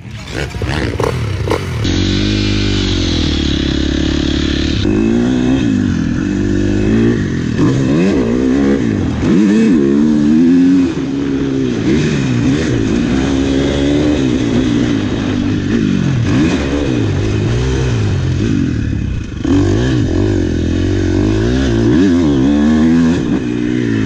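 Motocross dirt bike engine heard up close from on the bike, revving up and pulling away about two seconds in, then climbing and falling in pitch over and over as the rider accelerates through the gears and backs off for turns.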